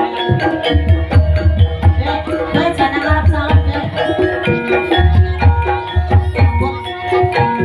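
Javanese gamelan music: bronze metallophones play a dense run of ringing notes over low, regular kendang drum strokes.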